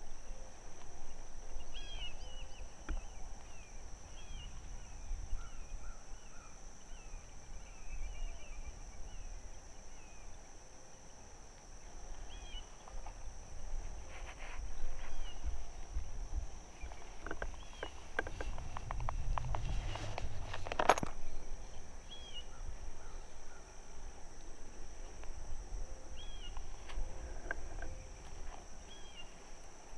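Natural field ambience: a steady high-pitched insect drone, with birds calling now and then. A run of clicks and rustling comes about two-thirds of the way in.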